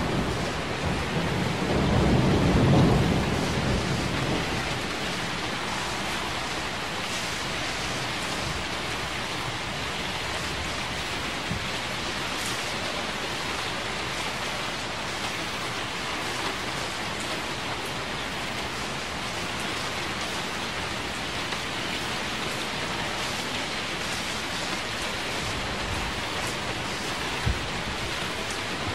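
Steady rain falling, with a low rumble of thunder in the first few seconds that dies away.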